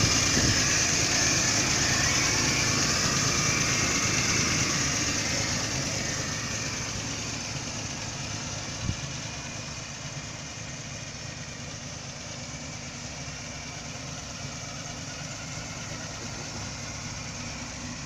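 1929 Buick's six-cylinder overhead-valve engine idling steadily, louder for the first few seconds and then fainter. A single sharp click about nine seconds in.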